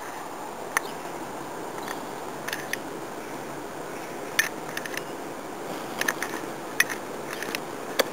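Steady background hiss with scattered sharp clicks and snaps, a dozen or so at irregular intervals, a few of them in quick pairs.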